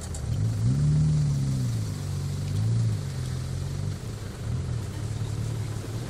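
Off-road 4x4's engine revving up and down as it pulls through soft sand and mud: two rises in pitch, the first about a second in and the second near the middle, then settling to a lower, steadier run.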